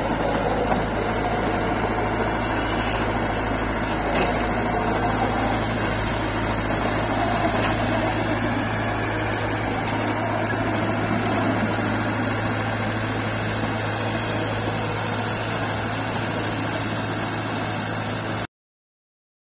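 Komatsu PC75 mini excavator's diesel engine running steadily at idle, a constant low hum with a few light knocks. It cuts off suddenly near the end.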